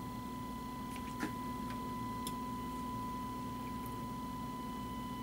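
A faint, steady 1 kHz sine test tone with a weaker overtone an octave up, over a low hum, from a power amplifier being driven hard on a test bench. A few light clicks come about a second in and again about two seconds in.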